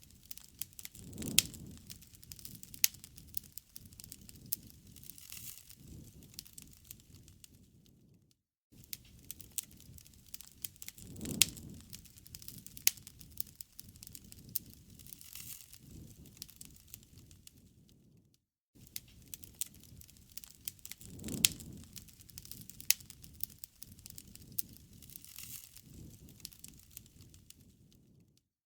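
Wood fire crackling, with frequent sharp pops and snaps over a low rumble of flame. The same roughly ten-second stretch of fire sound repeats, each time cut off by a brief dropout: a looped recording.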